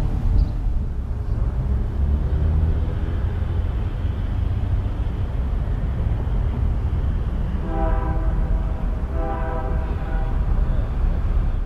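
Steady low rumble, with a train horn blowing twice near the end: two blasts of about a second each, several notes sounding together.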